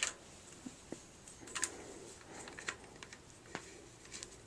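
Faint, scattered small clicks and light scraping from handling a Daisy 25 pump BB gun, as its tube magazine is worked back into place.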